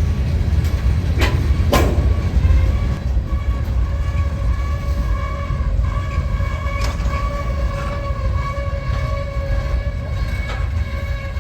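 A train rumbles close by, with two sharp knocks early on. About two and a half seconds in, its air horn begins a long held chord of several steady notes.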